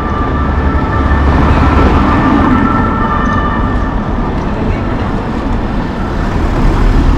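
Paris Métro train running through the station: a loud low rumble with a steady high-pitched whine that fades about halfway through.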